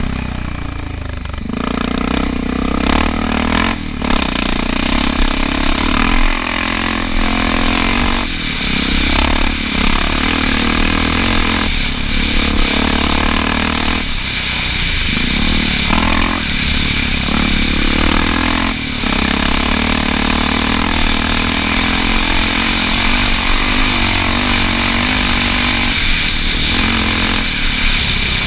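Honda XR650L's single-cylinder four-stroke engine running hard off road, its pitch repeatedly rising and falling with the throttle. A few sharp knocks are heard along the way.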